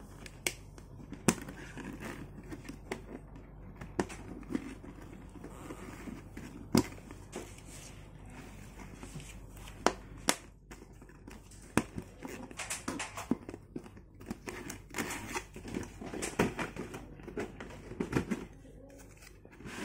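Clear plastic shoe storage boxes being handled while small plastic connector clips are fitted between them: irregular sharp plastic clicks and taps with rustling handling noise, busiest near the end.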